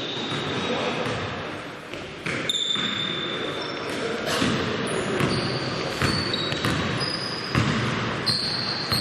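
Basketball game in play: the ball bouncing on the court, sneakers squeaking in short high chirps, and players calling out, all echoing in a sports hall.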